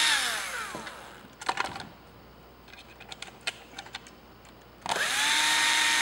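Black+Decker cordless drill/driver running a screw into a plastic battery case on a low torque setting. Its motor winds down about a second in, a few light clicks follow, and the drill starts up again about five seconds in and runs steadily.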